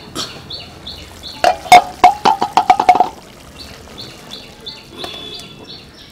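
Aluminium cooking-pot lid clattering as it is set down, a quick run of ringing metal clanks that come faster and faster as it wobbles to rest. A bird chirps steadily in the background, a short high call repeated two to three times a second.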